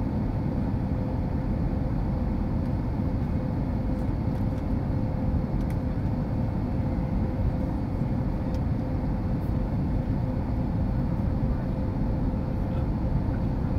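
Steady cabin noise of an airliner in flight on descent: an even low rumble of engines and rushing air with a faint steady hum.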